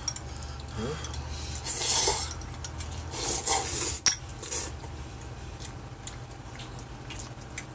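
Chapagetti noodles slurped noisily off chopsticks, three long sucking slurps in the first half, with short clicks of chopsticks and utensils against bowls.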